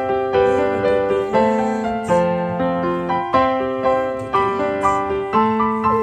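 Background piano music: a slow melody of single struck notes, each fading before the next.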